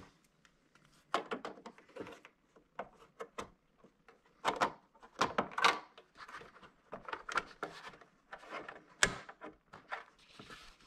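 A cover plate being pressed and slid into place over the stand screw holes on the back of a TV. Repeated light knocks, clicks and rubbing of hands and plate against the TV's back panel, with one sharp click about nine seconds in.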